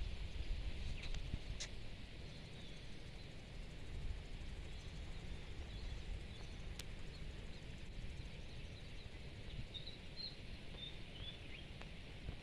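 Outdoor ambience: a low, steady wind rumble on a handheld phone's microphone, with faint bird chirps scattered through and a small cluster about ten seconds in.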